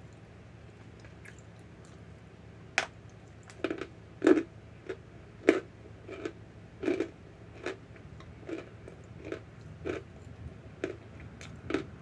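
Chunks of Argo laundry starch being bitten and chewed: a run of sharp, dry crunches, roughly one or two a second, starting about three seconds in.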